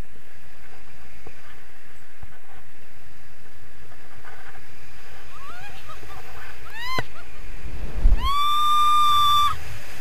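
Wind rushing over the microphone in flight under a paraglider. About seven seconds in, a woman gives a sharp rising whoop, then a long, high squeal of excitement.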